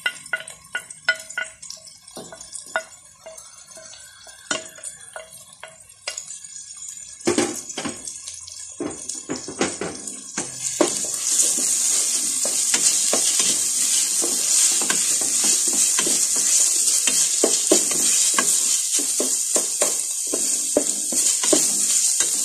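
Sliced onions, tomatoes and green chillies going into hot ghee in a pot and being stirred with a wooden spoon: scattered knocks and scraping at first, then from about eleven seconds in a steady, louder sizzle as they fry.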